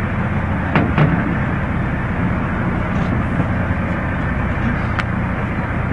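Steady low hum of a boat's engine running, with a few faint sharp clicks about a second in and again near the end.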